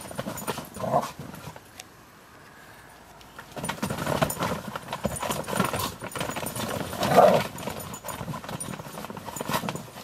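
Dogs scrambling and playing inside a fabric play tunnel. Their paws scuff and the tunnel material rustles in quick, irregular bursts, with a few short dog noises; the loudest comes about seven seconds in. It goes quieter for a moment around two seconds in.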